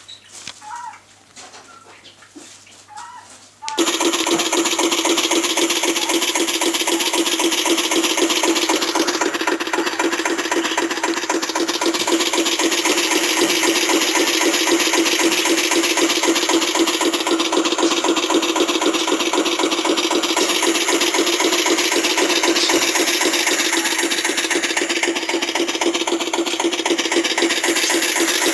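A recording of a Lister single-cylinder diesel engine running, played back through a recordable greeting card's sound chip and small speaker. It comes in suddenly about four seconds in, after a few faint clicks, then runs steadily with rapid even beats and little deep bass.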